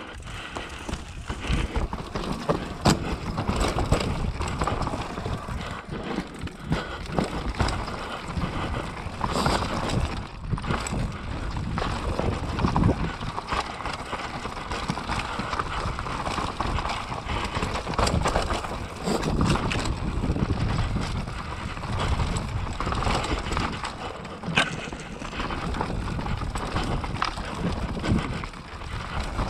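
Mountain bike riding down a rough dirt trail: steady tyre and ground noise with frequent clicks and knocks of the bike rattling over bumps, and wind on the microphone.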